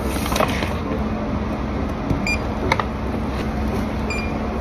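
Self-checkout barcode scanner giving two short, high beeps about two seconds apart as items are scanned, over a steady hum of store background noise, with a couple of light clicks from handling the packaging.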